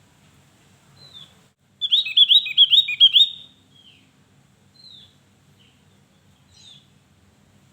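Javan grey-throated white-eye (opior Jawa) singing: a loud, rapid phrase of about six quick high whistled notes around two seconds in, with single thin down-slurred call notes before and after it.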